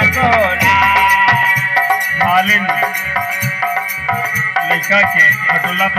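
Live devotional bhajan music: a harmonium holding sustained reed notes while drum and rattling hand percussion keep a steady beat. A sung phrase trails off at the start and another comes in near the end.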